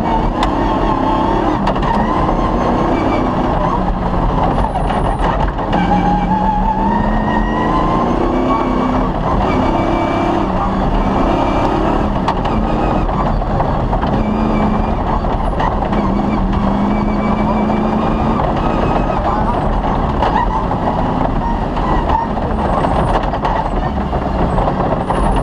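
Cross-country rally car's engine running hard at speed, its pitch rising and falling with throttle and gear changes, over a loud constant rumble of the car on the stage.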